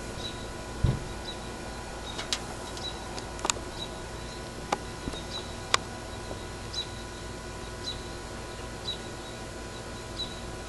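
Calm outdoor evening stillness with a steady low hiss, a faint high chirp repeating about once a second, a few sharp clicks, and one low thump about a second in.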